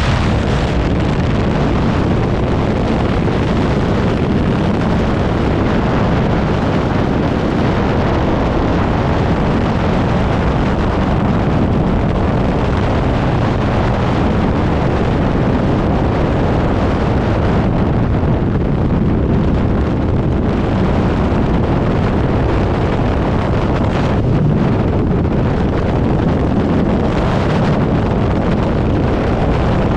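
Loud, steady rushing noise with no pitch, such as wind buffeting the microphone or rushing water, unchanging throughout.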